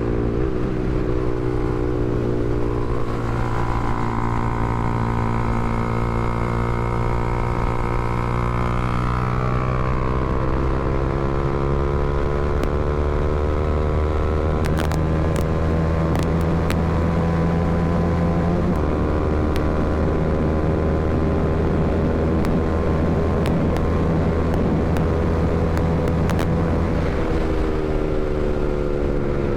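Honda CBR300R's single-cylinder engine running steadily, its pitch easing down and back up a few times as engine speed changes, with scattered faint clicks over the middle stretch.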